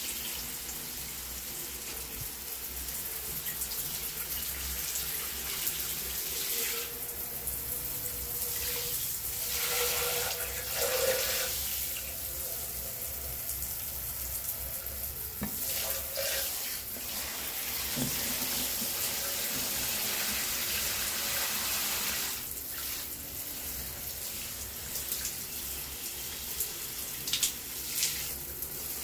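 Shower spray running steadily, water pouring and splashing onto potted plants in a tiled tub. Two brief taps near the end.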